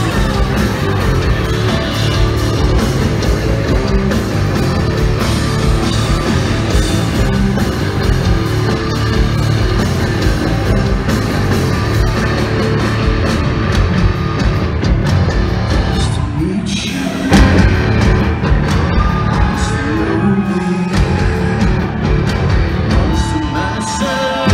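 Live rock band playing loudly, with a brief drop-out about two-thirds of the way through and then a loud hit as the band comes back in.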